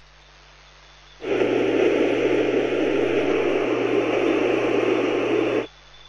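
Loud burst of harsh static noise starting abruptly about a second in, with a steady low hum beneath it, cutting off suddenly about four and a half seconds later.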